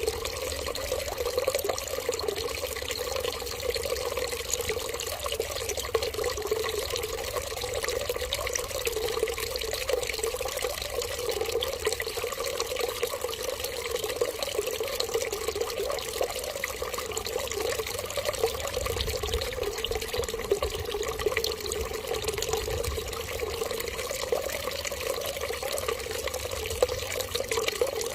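Water running in a steady, unbroken trickle.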